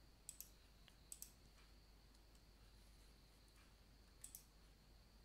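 Computer mouse clicking: three quick double-clicks, two within the first second and a half and a third near the end, over a faint steady high whine.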